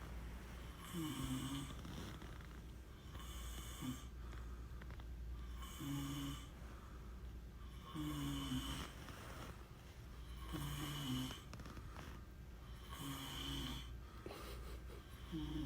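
Snoring, with a snore about every two and a half seconds, each a short low-pitched rasp.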